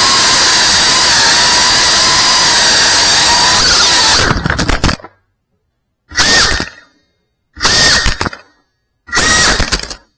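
FPV quadcopter's motors and propellers running with a steady high whine, then cutting out about four seconds in. Three short throttle blips follow about a second and a half apart, with silence between: the throttle chopped and punched during low-throttle flips.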